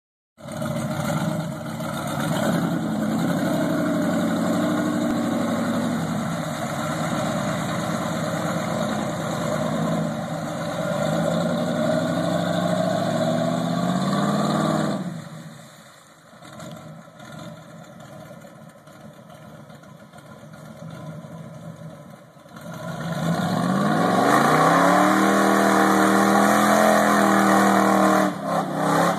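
Modified V8 engine of a lifted 1979 Ford Bronco mud truck revving and running under load in four-wheel drive through mud. About halfway through it drops to a quieter, more distant running, then revs up hard again with rising pitch and stays loud.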